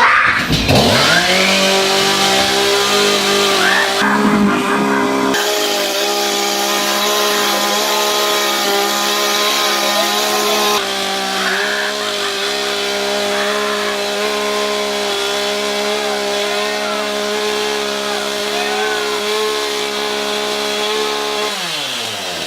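Chainsaw running at a high, steady throttle while carving a pumpkin, then the revs drop sharply near the end as the throttle is released.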